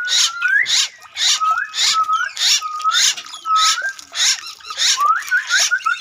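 Animal calls: a rasping call repeated about twice a second, over a wavering whistled tone that breaks into a quick run of short rising notes near the end.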